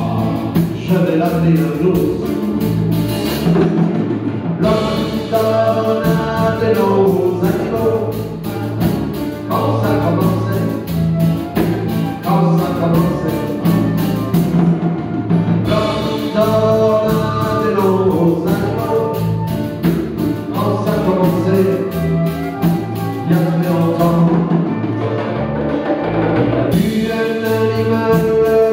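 A small live band playing a song on acoustic guitars with a transverse flute carrying a melodic line.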